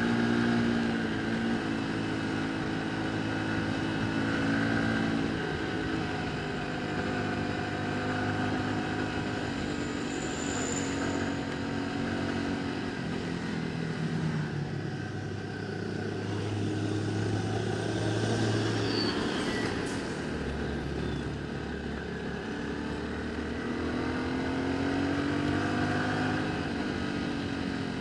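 Motorcycle engine running on the road, its pitch rising and falling as the revs change, over a steady hiss of wind and tyre noise.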